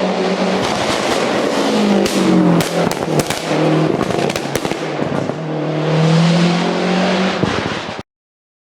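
Lancia Delta Integrale's turbocharged four-cylinder engine under hard driving, heard from inside the car, its note repeatedly climbing and dropping. A string of sharp cracks comes between about two and five seconds in, and the sound cuts off abruptly about eight seconds in.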